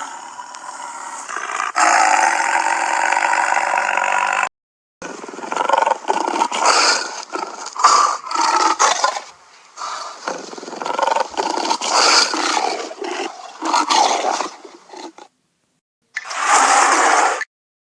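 Tiger growls and roars played one after another as separate sound-effect clips, broken by two short breaks of dead silence, with a last short roar near the end.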